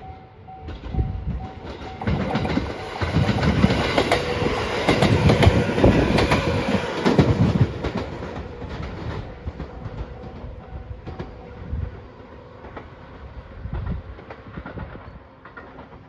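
Level-crossing warning bell ringing in a steady repeating ding while the La Malle de Bois, a two-car JR electric train, passes. Its wheels clack over the rail joints, loudest a few seconds in, then the train fades away. The bell stops about two-thirds of the way through.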